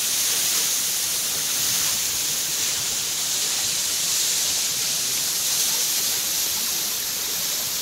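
Water of a partly frozen waterfall pouring down its ice-covered face: a steady, even rushing hiss.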